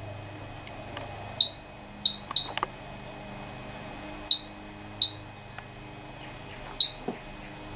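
Geiger counter chirping at random, six short sharp beeps spaced irregularly about a second apart, over a low steady hum.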